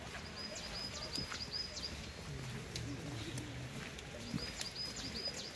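A small songbird singing a short phrase of quick repeated high notes, twice, with faint voices murmuring underneath.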